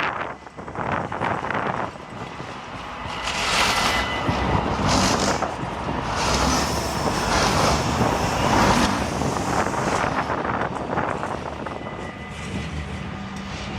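A tram passing on street track: wheel and running noise grows louder in the middle and then fades.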